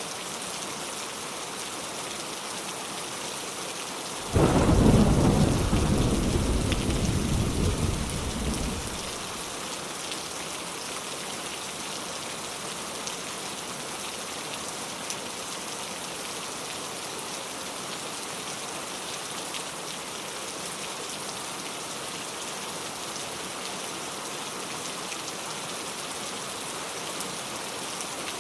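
Steady rain falling, with a clap of thunder about four seconds in that rumbles low and dies away over about five seconds.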